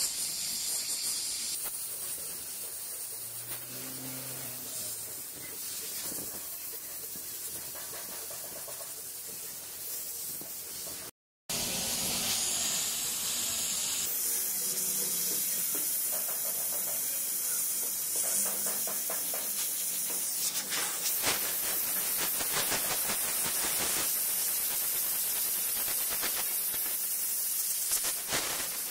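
Steam cleaner lance hissing steadily as it blasts steam onto a car headlight housing, with quick crackles in the later part.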